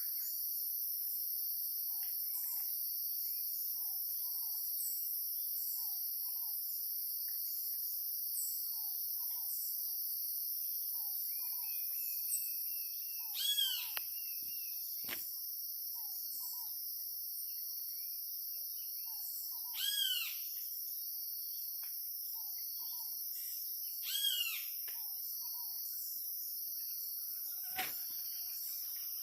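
Woodland ambience: a steady, high-pitched chorus of insects, with birds calling over it. One bird gives a short call about once a second, and three louder, ringing arched calls come about midway, a few seconds later, and again a few seconds after that.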